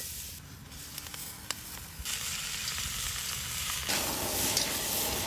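Chicken and freshly added vegetables sizzling in a very hot wok as they are tipped in and stirred with a metal wok spatula. The sizzling grows louder about two seconds in and again near four seconds, with a few sharp clicks of the spatula against the wok.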